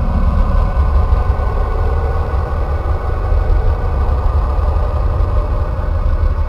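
A 'sound of a planet', space data turned into audio: a steady deep rumbling drone with faint held tones above it, unchanging throughout.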